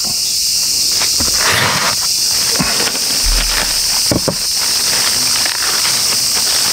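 Steady, high-pitched chorus of summer cicadas, with scattered crinkles and rustles of a plastic bag being handled and pulled open.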